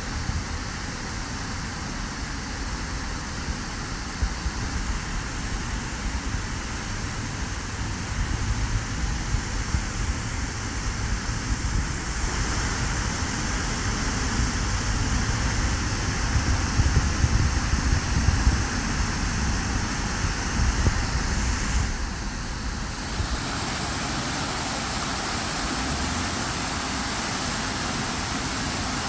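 Illuminated park fountain's tall central jet and ring of smaller spouts splashing into the pool, a steady rush of water. Under it a low rumble of road traffic, strongest in the middle; the balance shifts abruptly twice.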